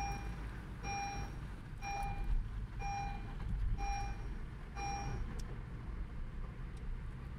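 An electronic warning chime beeping six times, about once a second, and then stopping, over the steady hum of a car driving along.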